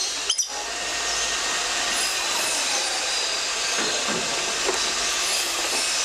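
Steady, dense hissing background din of a bird aviary, with faint bird calls mixed in, broken by a brief dropout just after the start.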